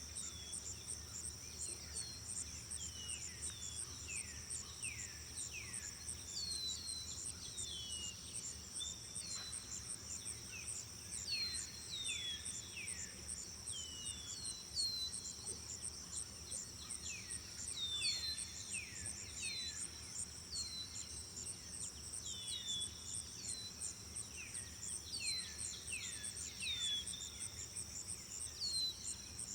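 Nature ambience of crickets trilling steadily, with a fast pulsing chirp high above, while birds give many short, downward-sliding whistled chirps, often in quick clusters.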